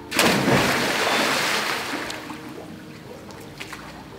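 A person hitting a swimming pool in one big splash just after the start, then the water sloshing and settling over the next couple of seconds.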